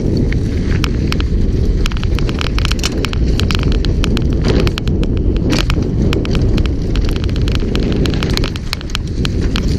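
A downhill mountain bike running fast over a dry dirt trail. A steady loud rumble of knobby tyres and wind buffeting the microphone runs under rapid, irregular clicks and rattles from the chain and frame over the bumps. The rumble eases briefly near the end.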